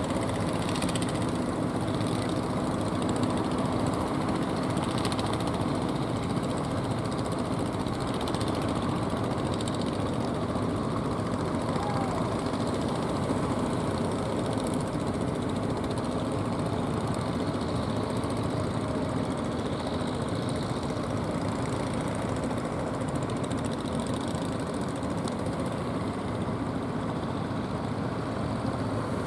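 Fishing boat engine running steadily, a continuous drone with no change in speed.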